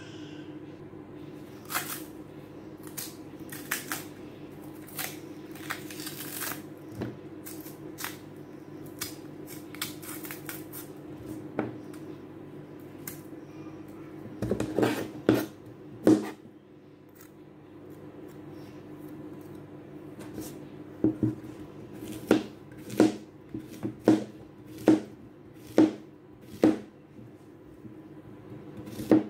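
Kitchen knife working on unripe green plantain on a plastic cutting board: scattered clicks and scrapes of the blade against the tough peel, then, about two-thirds through, the knife slicing the peeled plantain into rounds, one sharp knock on the board about every second. A steady low hum runs underneath.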